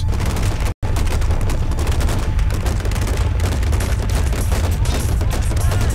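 Dense, continuous automatic weapons fire: rapid overlapping shots from assault rifles and machine guns at close range. It cuts out for an instant about a second in.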